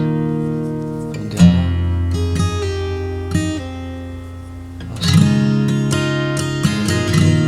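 Martin D-18V dreadnought acoustic guitar with mahogany back and sides, played solo. A chord is strummed about a second and a half in and another about five seconds in, each left to ring, with a few single notes picked between them.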